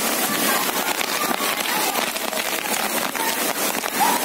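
Heavy rain falling on a street: a steady, dense hiss of drops. Children's voices are faintly heard in it, with a short shout near the end.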